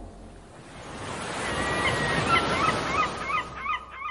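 Birds calling in many short, quickly repeated honk-like calls over a rushing noise that swells and fades away. The calls set in about a second and a half in and grow denser towards the end.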